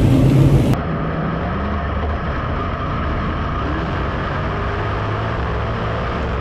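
Dirt modified race cars' V8 engines running in a pack. Under a second in, the sound cuts to an in-car camera inside the cockpit of a big-block modified, its engine running at a steady drone.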